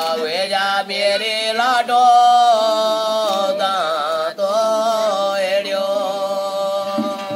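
A man singing a devotional chant solo in long held notes that waver and slide between pitches.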